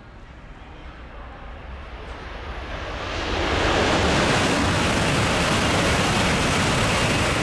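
N700-series Shinkansen passing through the station at about 300 km/h: a rushing noise that swells over the first three seconds or so as it approaches, then holds loud and steady as the cars stream past.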